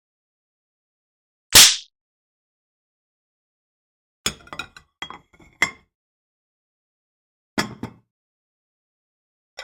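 Kitchen sound effects: a short, loud swish about a second and a half in, then glassware and dishes clinking in two quick clusters, one around the middle and a shorter one near the end.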